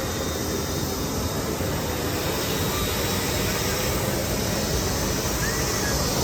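Steady, even noise of a jet aircraft's engines running on the ground.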